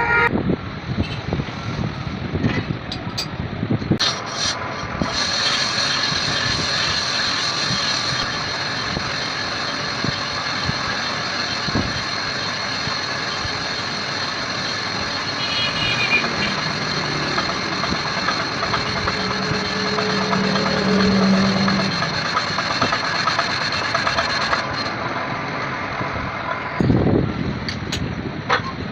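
Steady mechanical running noise with a high whine that starts about five seconds in and stops sharply a few seconds before the end, with occasional knocks.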